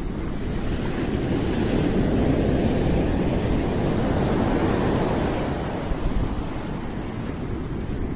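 Steady rushing noise with no distinct events, swelling slightly over the first few seconds and easing a little near the end.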